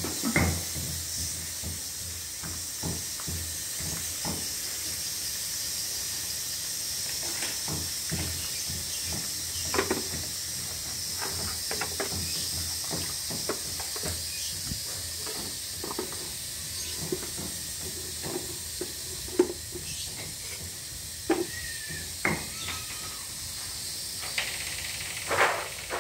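Scattered knocks and clatters of household handling, a plastic dipper in a bucket and a woven basket of corn, over a steady high hiss.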